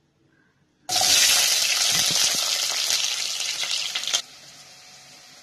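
Raw onion pieces going into hot cooking oil in an aluminium pan: a loud frying sizzle that starts suddenly about a second in and drops abruptly to a faint, steady sizzle near the end.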